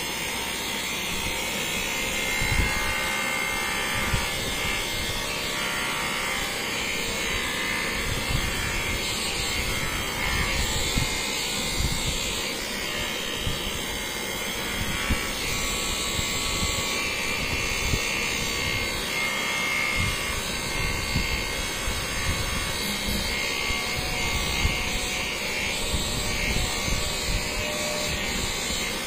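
Handheld electric massager buzzing steadily as it is pressed against a patient's back, with small uneven low thumps as its head works on the body.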